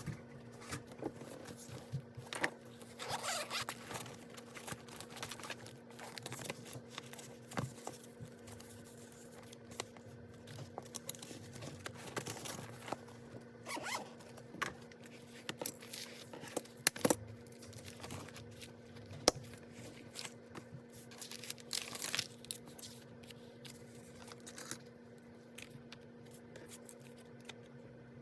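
Sped-up sounds of paper and stationery being handled at a desk: quick rasping swishes, scrapes and sharp clicks, over a steady low hum.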